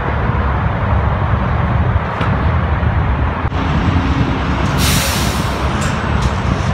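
Steady highway traffic noise with a heavy low rumble. About five seconds in, a sharp hiss lasting about a second cuts through, like a truck's air brakes.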